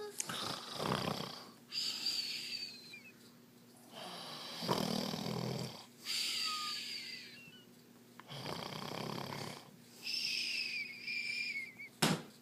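Pretend snoring by a man: three rasping snores, each followed by a high whistle falling in pitch, and a sharp click near the end.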